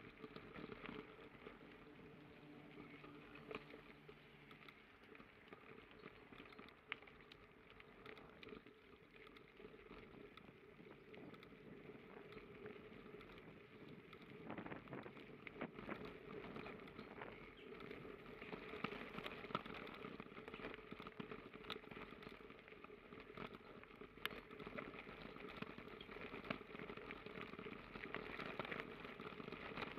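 Faint crunching and pattering of bicycle tyres rolling over a freshly laid loose gravel path, with small rattles and ticks. It gets louder through the second half.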